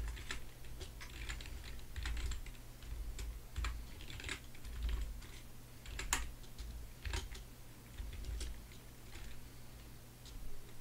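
Computer keyboard being typed on: irregular clicks of keystrokes, in short runs with pauses, over a faint steady low hum.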